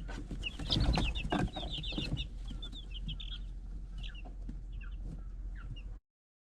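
Young Cream Legbar chicks peeping: a busy run of short, high chirps, with a few knocks in the first couple of seconds. The sound cuts off suddenly near the end.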